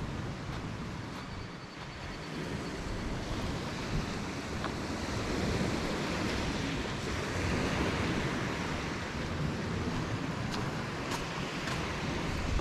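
Wind rushing and buffeting the microphone over the steady wash of small waves on a beach, swelling a little in the middle.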